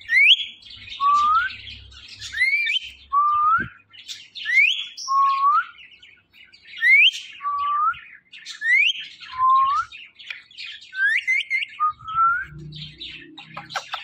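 Indian ringneck parakeet giving repeated two-note whistled calls, a sharp rising high note followed by a lower upswept note, about every two seconds, with scratchy chatter between them.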